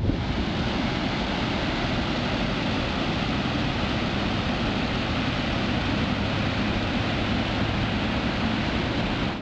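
Water pouring over a low dam into the river below: a steady, even rush that starts and stops abruptly.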